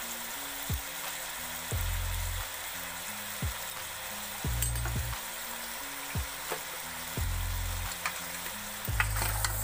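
Beef and bones frying in hot oil in a pot, giving a steady sizzle, with a few faint clicks. Background music with a slow low bass line plays under it.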